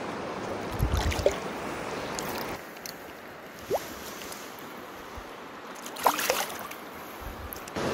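Splashing in shallow river water as a released steelhead kicks its tail, in two short bursts, about a second in and again about six seconds in, over the steady wash of the current.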